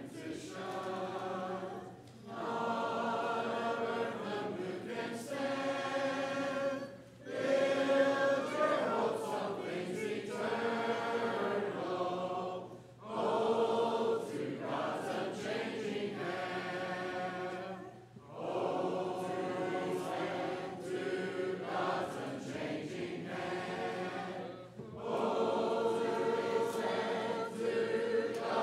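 Congregation singing the closing hymn a cappella, many voices together with no instruments. The song comes in long phrases with short breaks for breath about every five or six seconds.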